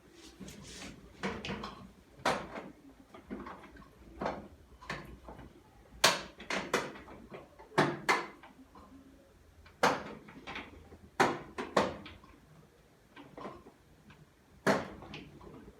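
Irregular clicks and knocks of hands and tools working on the cabinet and door parts of a front-loading washing machine during disassembly. Some knocks are much louder and sharper than others.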